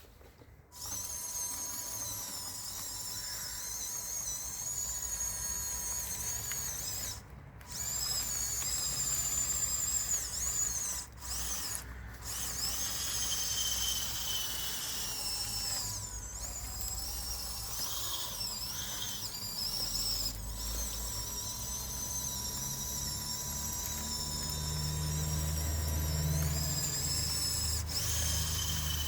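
Whine of the electric drive motors and gearboxes of a Huina 1554 radio-controlled bulldozer. The pitch wavers up and down as the throttle changes, and it cuts out briefly a few times. A low rumble joins in over the last few seconds.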